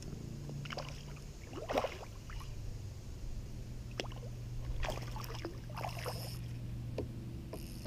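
A small largemouth bass splashing at the surface several times as it is reeled in beside the kayak, over a steady low hum.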